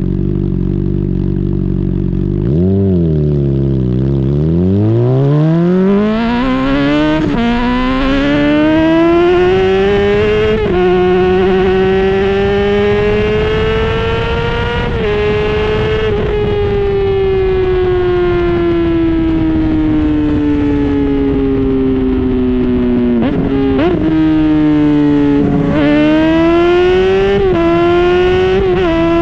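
2010 Honda CBR600RR inline-four through a Yoshimura slip-on exhaust. It runs steadily for a couple of seconds, revs up and down once, then pulls hard through three upshifts, each a rising howl cut by a sudden drop in pitch. After that the engine speed falls slowly for several seconds, two quick blips on downshifts come near the end, and it picks up again.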